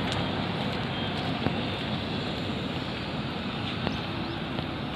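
Steady wind rushing over the microphone, mixed with a low hum of distant road traffic.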